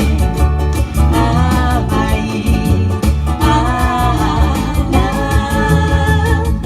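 Live ukulele music: steady strummed chords under a melody line.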